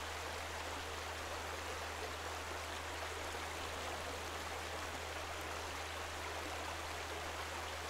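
Steady, even rushing of running water, with a low steady hum beneath it.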